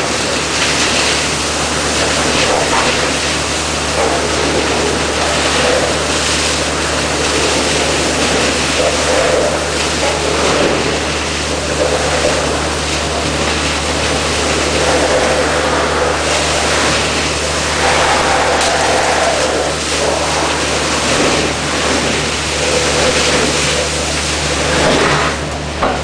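Large industrial vacuum hose sucking up material from the pit: a loud, steady rush of air over a constant low hum from the vacuum unit. The rushing swells and eases every few seconds as the nozzle is worked.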